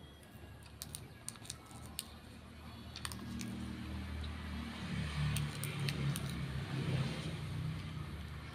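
A few small, sharp clicks while food is pulled apart by hand, then the low hum of a motor vehicle's engine grows, is loudest about five to seven seconds in, and eases.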